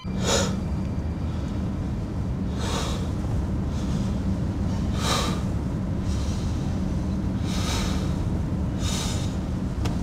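A man breathing heavily, five sharp breaths about two seconds apart, over a steady low rumble.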